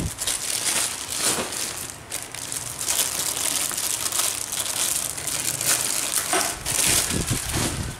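Clear plastic wrapping crinkling and crumpling in irregular bursts as hands handle the plastic-wrapped handlebar of a brushcutter.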